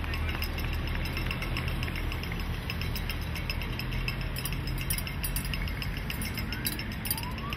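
Team support cars with bicycles on their roof racks driving slowly uphill past: a low engine and tyre hum, with light metallic clinking and ticking. A short rising whistle near the end.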